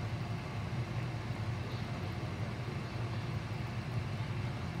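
Pot of short rib stew simmering on the stove, faint bubbling over a steady low hum.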